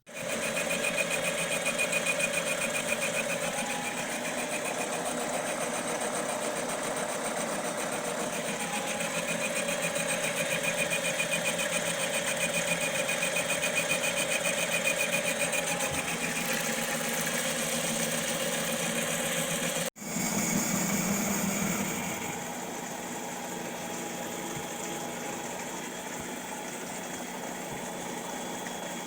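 Machinery running steadily with a fast, even mechanical chatter, which fits a metal lathe running under power. About twenty seconds in there is a sudden cut to a somewhat quieter running sound.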